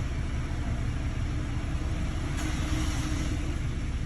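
2020 Ford Ranger engine running steadily at idle after the injector replacement.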